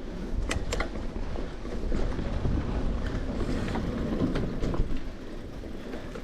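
Mountain bike riding over a dirt trail: a steady rumble of tyres and wind on the microphone, with a couple of sharp rattling clicks from the bike about half a second in.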